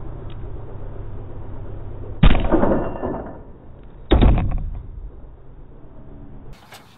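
A bundle of nylon fishing line snaps under a car's weight with a sudden loud bang as the car drops, and a second bang follows about two seconds later. Under it, the forklift's engine idles steadily and stops near the end.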